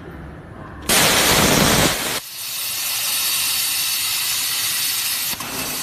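CNC plasma cutting torch starting up. About a second in comes a loud, full hiss lasting just over a second. It then settles into a steady, high-pitched hiss as the plasma arc cuts the thin metal sheet.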